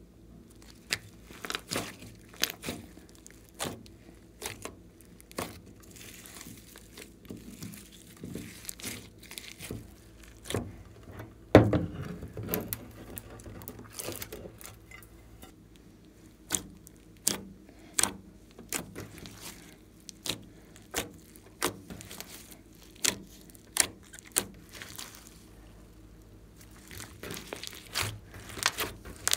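Thick glossy slime being stretched, folded and pressed by hand, giving a run of sharp wet clicks and pops from trapped air, a few a second. A single heavy thud stands out about twelve seconds in.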